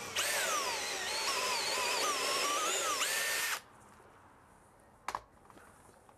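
Cordless drill boring a pilot hole through a plastic rain gutter into its wooden post. The motor whine drops in pitch as the bit bites, wavers, then rises just before the drill stops about three and a half seconds in. A single sharp click follows about five seconds in.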